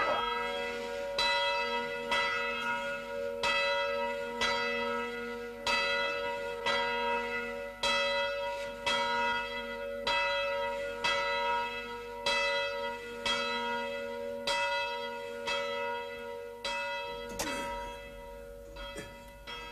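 A single swinging church bell being rung, its clapper striking about twice a second so that each stroke rings on into the next. The ringing grows gradually fainter toward the end.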